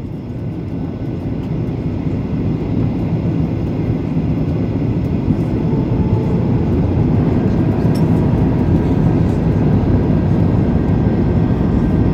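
Airliner cabin noise heard from a window seat of an Airbus A320-family jet coming in to land: a dense, steady low rumble of engines and airflow that builds up over the first few seconds, then holds.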